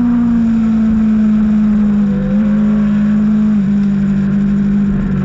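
Racing motorcycle engine running hard at high revs, one steady note that drifts slightly lower with a couple of small dips.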